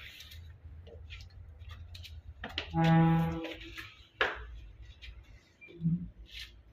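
Footsteps climbing concrete stairs, with a few knocks, over a low rumble. About three seconds in, one loud steady-pitched horn-like tone lasts about half a second, and a brief shorter one follows near the end.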